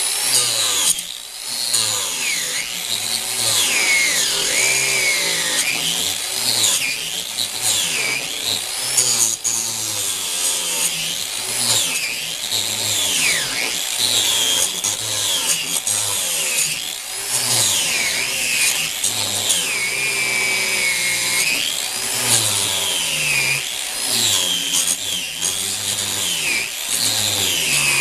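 Electric angle grinder cutting through seized steel T-nuts. The motor's whine sags and recovers over and over as the disc bites into the metal and eases off.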